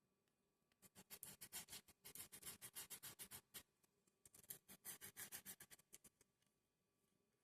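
Faint, rapid scratching and clicking of small wooden model-kit parts being handled and worked into place, in two stretches of a couple of seconds each.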